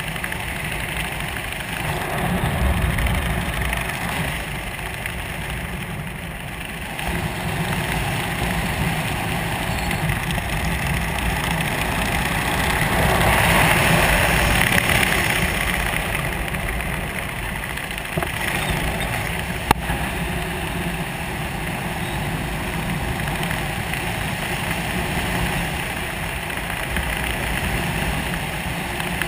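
Wind buffeting the camera's microphone during a descent under a round parachute: an uneven rushing rumble that swells about halfway through, with a single sharp click about two-thirds of the way in.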